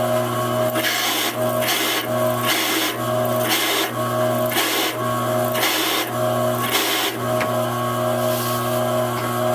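Drill press running with a ring-shaped hole cutter boring through a steel saw blade: a steady motor hum, interrupted about once a second by a harsh grinding rasp as the cutter bites into the steel, the hum dipping with each bite.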